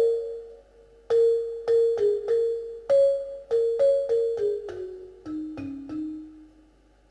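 Background music: a slow melody of single struck notes, each fading after it is played, stepping downward in pitch, with short pauses about half a second in and near the end.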